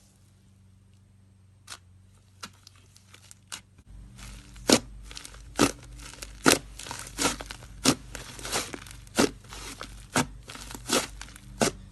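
Slime being squeezed and worked by hand, giving irregular sharp clicks and pops. A few come at first, then from about four seconds in they come thick and fast over a low steady hum.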